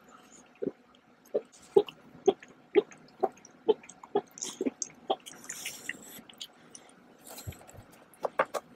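A person gulping a drink, about ten swallows in a steady rhythm of roughly two a second. Later come a dull thump and, near the end, a few sharp clicks.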